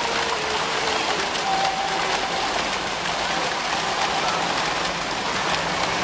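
Fountain water jets falling and splashing steadily into a stone basin, a continuous rain-like rush of water.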